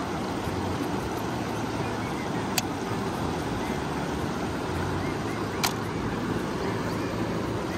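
Steady rushing of a flowing river, with two short sharp clicks about three seconds apart.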